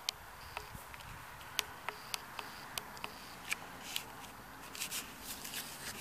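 Footsteps crunching on dry, matted field grass: a loose run of short, sharp crunches, roughly two a second.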